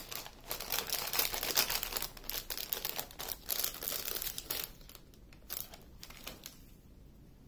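Thin plastic zip-lock bags crinkling as they are handled: a dense crackle for the first four or five seconds, then only a few faint rustles.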